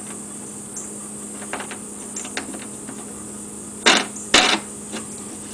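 Plastic bridge-type dent puller being handled on a car door panel: a few faint clicks, then two sharp clacks about half a second apart about four seconds in.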